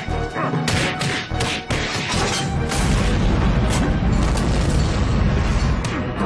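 Cartoon action soundtrack: music under a series of crashes and impacts in the first few seconds, then a heavy, steady low rumble of a space shuttle's rocket engines lifting off from about three seconds in.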